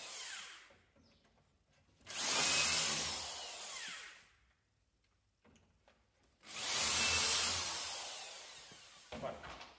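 Electric drill boring 8 mm dowel holes into a 19 mm board through a metal doweling jig: the tail of one hole, then two more bursts of about two seconds each, each starting suddenly and fading with a falling whine as the motor winds down.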